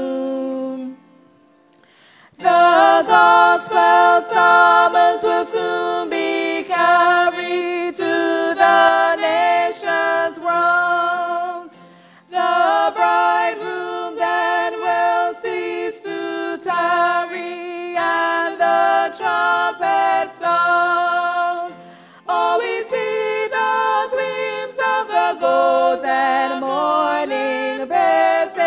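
Two women's voices singing unaccompanied into microphones, in sung phrases with brief pauses between them; there is a short silent break about a second in.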